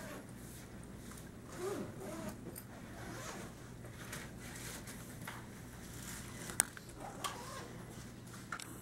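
Faint rustling and rasping handling noise close to the microphone, with a couple of short sharp clicks about six and a half and seven seconds in, over a low steady hum.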